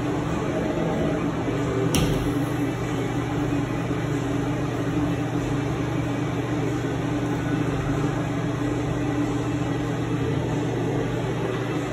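Steady mechanical hum of the restroom's ventilation, with one sharp click about two seconds in.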